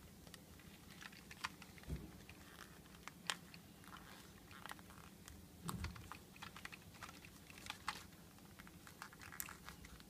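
Faint scattered clicks, creaks and rustles of hands working a cushioned ear pad onto a plastic over-ear headphone earcup, with a couple of soft handling thumps about two and six seconds in.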